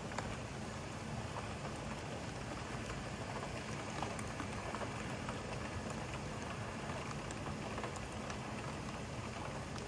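Steady rain falling, with many scattered individual drops ticking through the even hiss.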